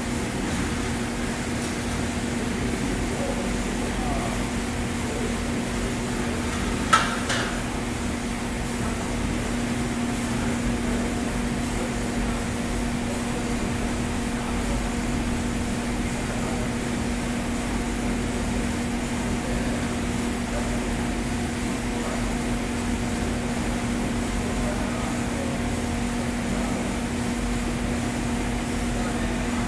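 Probat G75 75 kg drum coffee roaster running through the green coffee intake stage: a steady mechanical hum with a constant low tone. A single sharp knock about seven seconds in.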